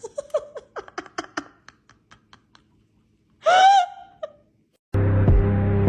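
Laughter in quick pulses that fade out over the first second or so, then one short loud cry that rises and falls in pitch. Music with a low steady hum and a regular beat cuts in near the end.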